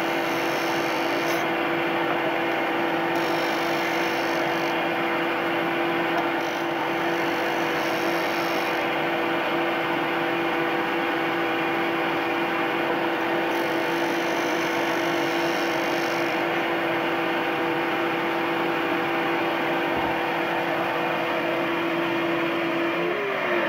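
Ryobi RBDS4601G belt and disc sander running with a steady motor hum, while a pine block is pressed to its 150 mm sanding disc about four times, each pass adding a hiss of abrasive on wood. Near the end the machine is switched off and its hum falls in pitch as it spins down.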